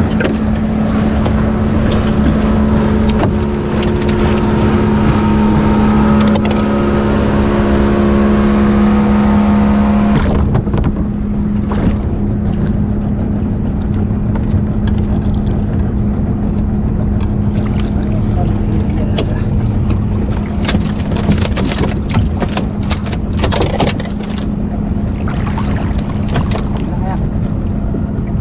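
Small fishing boat's motor running steadily under way. Its note eases off about ten seconds in and the engine keeps running, with scattered knocks over the steady drone.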